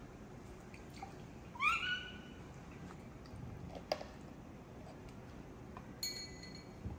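Baby monkey giving one short call that rises in pitch and then holds, about two seconds in. A sharp tap follows about two seconds later, and a brief high squeak comes near the end.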